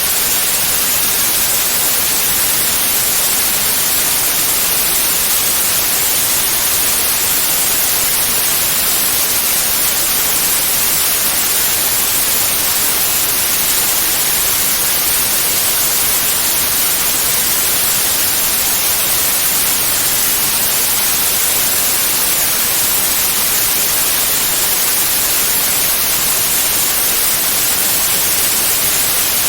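Steady white noise: an even, unchanging hiss across the whole range of pitch, with no tone, rhythm or swell in it.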